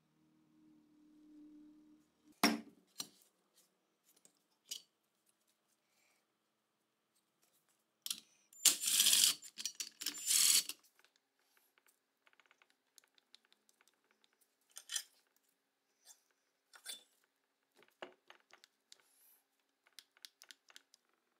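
Small metal tools and gun parts clicking, clinking and knocking at a workbench, with one loud burst of noise lasting about two seconds near the middle.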